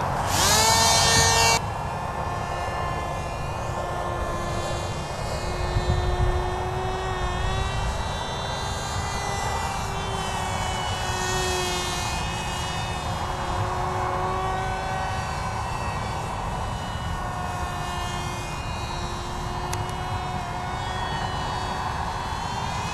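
Small electric RC flying wing's motor and propeller whining at high throttle: a loud whine rising in pitch just after the hand launch, dropping to a quieter whine about a second and a half in that drifts up and down in pitch as the plane flies around. Wind rumbles on the microphone underneath.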